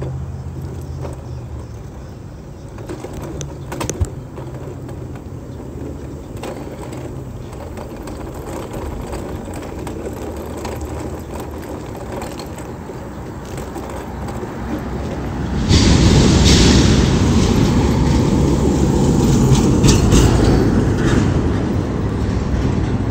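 Road and engine noise inside a moving car, a steady low hum with a single click about four seconds in. About sixteen seconds in it turns much louder, into a rushing noise that carries on to the end.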